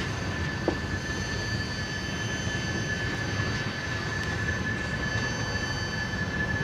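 Freight train of tank cars rolling slowly past: a steady low rumble of steel wheels on rail with a steady high-pitched wheel squeal, and one short knock just under a second in.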